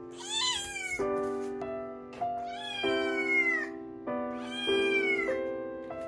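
Munchkin kitten meowing three times, drawn-out calls that fall in pitch at the end, over background music with sustained notes.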